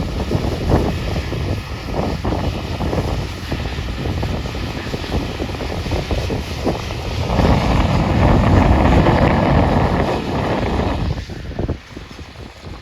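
Wind buffeting the microphone in uneven gusts, with one long, stronger gust a little past halfway that dies away near the end.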